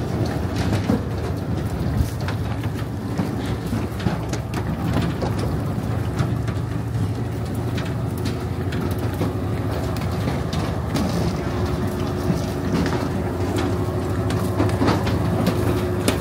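An engine running steadily with a low hum, with irregular clatter and clicks over it.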